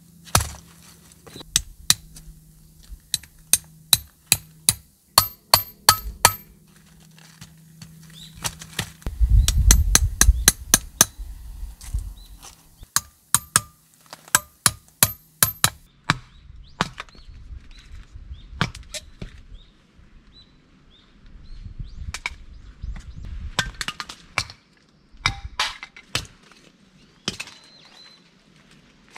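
Firewood being split with a broad blade: a run of sharp knocks, one or two a second, many with a high metallic ring from the blade. Around ten seconds in comes a lower, rougher crunching as the wood cracks apart, then more scattered knocks.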